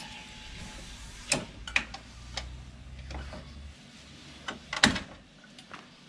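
A caravan jockey wheel being wound up by its crank handle: a series of sharp metallic clicks and clunks, the loudest about five seconds in, with a low rumble for a couple of seconds in the middle. Winding the wheel up lets the drawbar's weight settle onto a tow ball weight scale.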